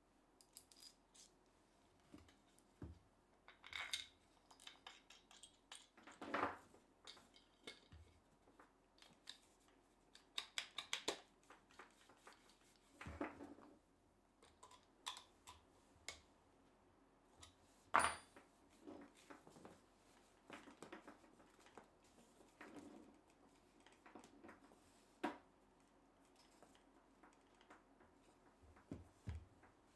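Scattered clicks, clinks and light knocks from hand assembly work: a small metal hex key, washer and bolt being handled, and a HiKOKI drill being set and clamped into a wooden block. The sharpest click comes about eighteen seconds in.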